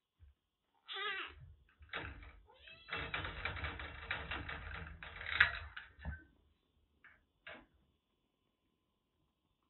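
A kitten meows once about a second in, then gives a couple of short calls. From about three seconds in there are about three seconds of rattling and knocking at the wire pet cage.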